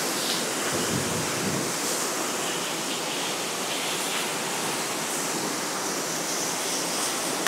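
Mountain waterfall pouring over rocks into a beck: a steady, even rush of falling water.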